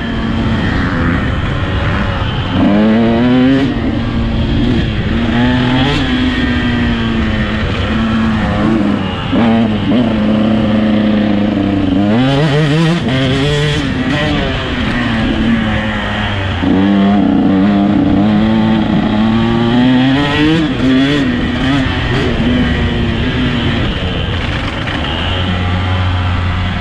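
KTM 125 SX two-stroke single-cylinder motocross bike being ridden hard, its engine revs climbing and falling over and over with the throttle, with a deep drop in revs about twelve seconds in before it climbs again. Heard from the rider's helmet camera.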